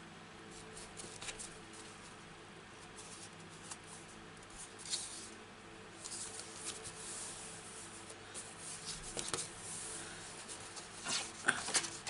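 Stiff cardstock being handled: faint rustles, scrapes and light taps as the card is slid, flexed and repositioned, a little louder near the end, over a faint steady hum.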